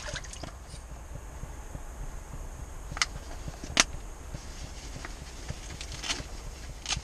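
A few sharp plastic clicks and faint rustles of small fishing gear handled in the hands, the loudest click a little before the middle, over a steady low rumble and a faint high whine.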